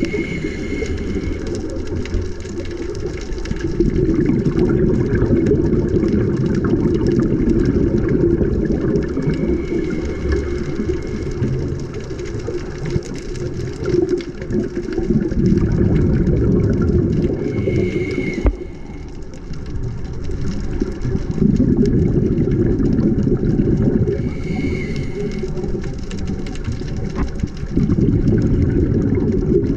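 A scuba diver breathing through a regulator underwater: a short hissing inhale, then a long gurgle of exhaled bubbles, repeating about every six seconds.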